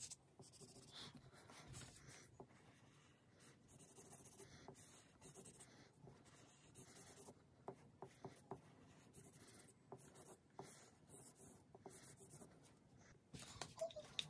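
Faint strokes of a felt-tip highlighter across a paper worksheet, in short repeated passes, with a louder burst of handling noise near the end.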